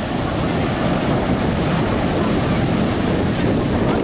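Sea surf washing on a beach, a steady rush of noise, with wind buffeting the microphone.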